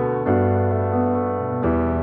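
Background music: sustained piano chords, changing twice.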